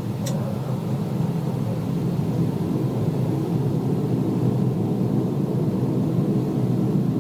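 A steady low droning hum in the sky, several deep tones held together, growing slightly louder, with a single sharp click just after the start. It is one of the strange sky sounds reported as 'trumpets in the sky', with no known source.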